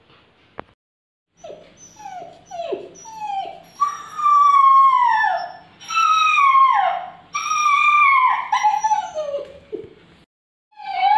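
Puppy howling: a few short whining yelps, then four long howls, each sliding down in pitch at its end.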